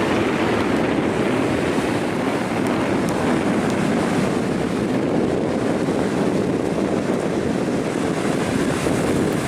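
Steady wind noise on the microphone mixed with ocean surf.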